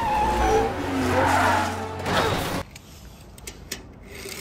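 Music with wavering tones, cutting off suddenly about two and a half seconds in; after it come quieter light clicks and taps.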